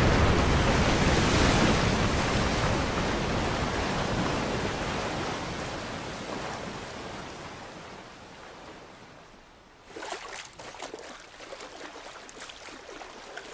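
A big rush of water crashing down and fading away steadily over about nine seconds. About ten seconds in, it gives way to small splashes and sloshing of water around someone standing in it.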